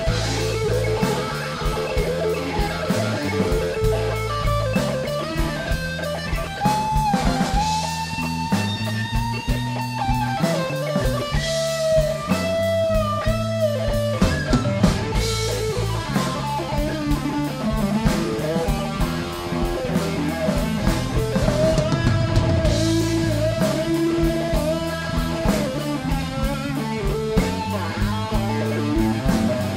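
Blues band playing live: an electric guitar solo with long, bent notes over a second guitar, bass and a drum kit.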